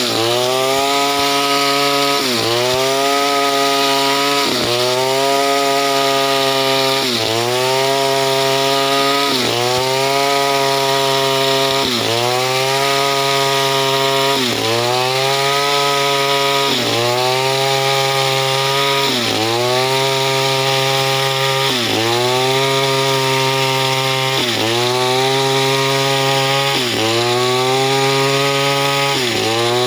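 Petrol chainsaw engine running at high revs while cutting wood into battens, its pitch dipping and recovering about every two and a half seconds as the chain bites into the wood.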